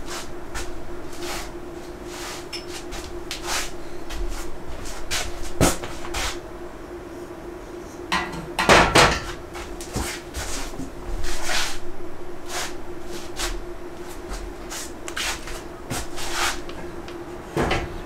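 Steel rack parts being handled and fitted: irregular sharp metal clicks and knocks, with a louder cluster of clunks about nine seconds in and another a couple of seconds later, over a steady faint hum.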